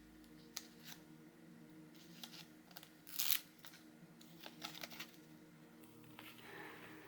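Packing wrap being pulled and torn off a resin ball-jointed doll: faint rustling with scattered small clicks, and one louder rip about three seconds in.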